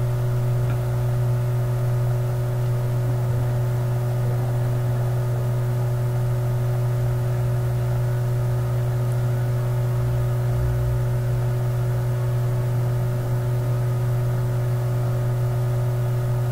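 Steady low hum of a small motor, unchanging throughout, with a few faint steady higher tones above it.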